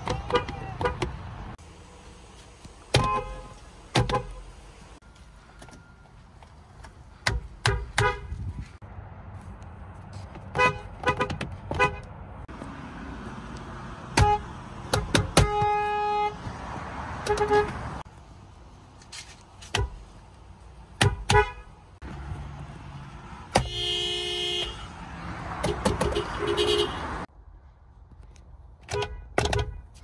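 Car horns of several Japanese cars, among them a Lexus, sounded one after another from the driver's seat inside the cabin. Most are short taps and double taps, with two longer blasts of about a second around the middle and two-thirds of the way through. Each horn holds a steady tone.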